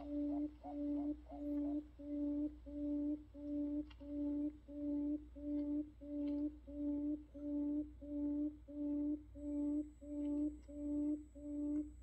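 Buttonquail call used as a trapping lure: a low hooting note repeated evenly, about three every two seconds.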